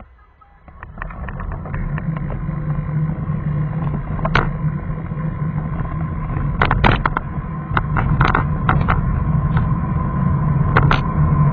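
Car driving, its engine and road noise heard from inside the cabin through a dashcam microphone. The noise swells in about a second in and then holds steady, with scattered sharp clicks and rattles.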